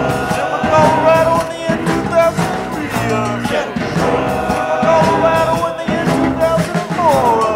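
Rock music: a band playing a stretch without words, with gliding pitched notes over a steady beat.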